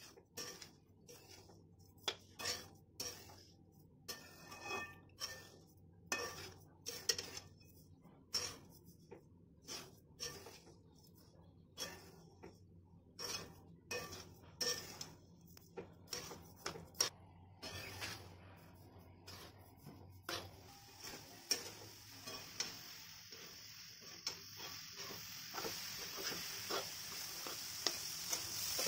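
Metal spatula scraping and stirring grated coconut in a steel wok, in short strokes about once a second. From about two-thirds of the way through, a sizzling hiss rises and keeps building as the pan heats up.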